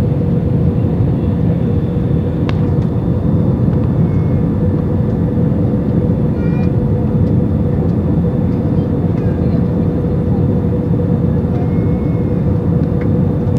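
Airbus A320 cabin noise on final approach: jet engine and airflow roar heard from inside the cabin, loud and steady, with a steady hum running through it.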